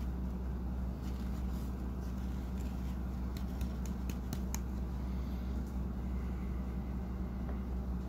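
Steady low background hum with no speech, with a few faint clicks about three to four and a half seconds in.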